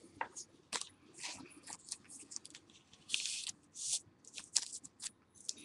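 Faint crinkling, rustling and clicking of trading-card packs and cards being handled, with a couple of brief scraping swishes about three and four seconds in.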